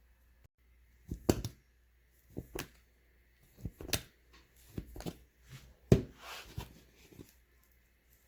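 Hands kneading and shaping a small piece of bread dough with chocolate chips on a work surface: a string of irregular soft knocks and handling noises, the sharpest about a second in and again near six seconds.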